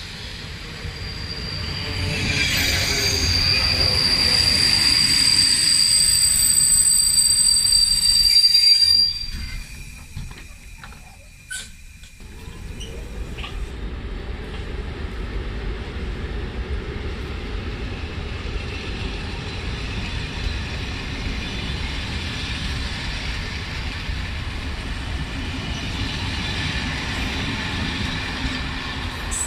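BDZ class 45 electric locomotive hauling passenger coaches, its wheels and brakes squealing in high ringing tones for several seconds as it comes in. The sound drops off abruptly about nine seconds in, and from a few seconds later the coaches roll past with a steady low rumble.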